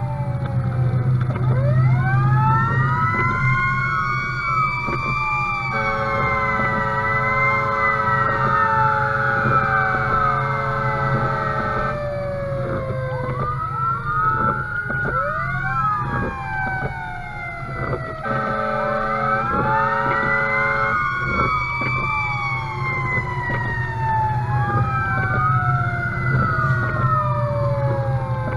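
Fire engine siren wailing in slow rising and falling sweeps, with two long steady horn blasts: one from about 6 to 12 seconds in, a shorter one about 18 seconds in. A steady engine drone runs underneath.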